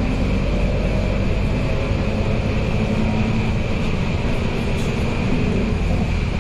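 Scania K230UB bus under way, heard from inside the passenger cabin: its rear-mounted five-cylinder diesel engine and drivetrain running with road and tyre noise, a steady low rumble under a faint high whine.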